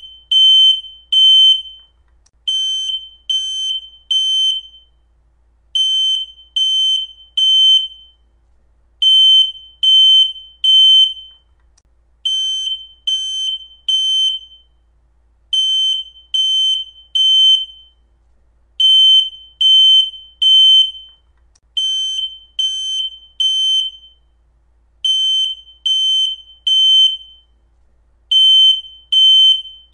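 Smoke alarm sounding its full alarm: a loud, high-pitched beep repeated in groups of three, each group about three seconds apart. This is the temporal-three pattern that signals smoke or fire, not the single chirp of a low battery.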